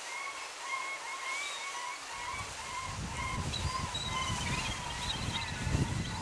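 Rushing water of a small creek waterfall, with a bird calling in a quick, even series of short notes. From about two seconds in, a low rumble of wind on the microphone joins in.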